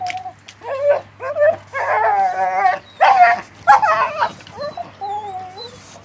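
Puppies play-fighting, giving a string of high-pitched yelps and whines, with one longer wavering whine about two seconds in.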